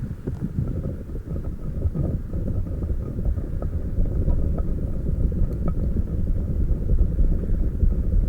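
Soft foam squishy slug toy being squeezed and rubbed right against the microphone: a dense, continuous low rumble scattered with small crackles.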